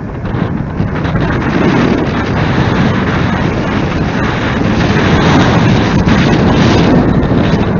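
Loud, steady wind rumble buffeting a moving camera's microphone.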